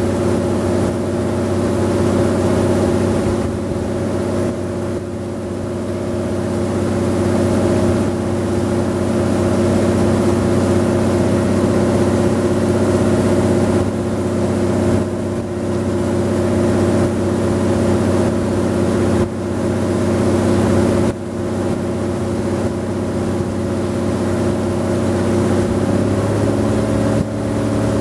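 Engine of a wooden river tour boat running steadily under way. Its note changes about two seconds before the end.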